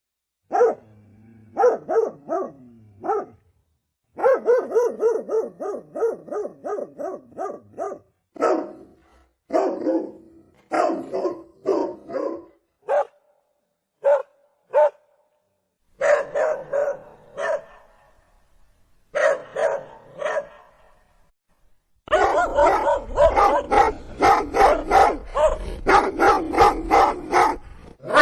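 Pomeranian barking in quick runs of short, sharp yaps with brief pauses between runs; the longest, fastest run comes near the end.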